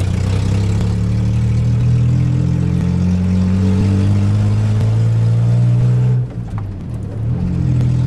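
Suzuki Swift 1.0's three-cylinder engine under way, heard from inside the cabin, running loud through its exhaust with the note slowly climbing. About six seconds in the engine note drops away briefly, then comes back.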